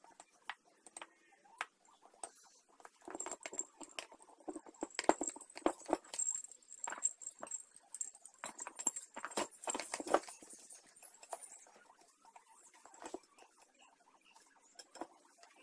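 Steel spokes clinking and tapping against a chromed motorcycle wheel hub and rim as they are fitted by hand: a run of irregular light metal clicks, busiest in the middle and thinning out near the end.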